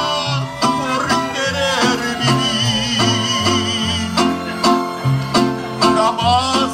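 Mariachi-style instrumental music: rhythmic strummed guitars over a stepping bass line, with a bowed violin line.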